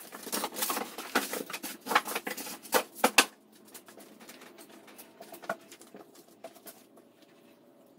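Cardboard packaging and paper being handled and set down on a cloth-covered table: a busy run of sharp rustles and taps for about three seconds, then quieter, scattered rustling.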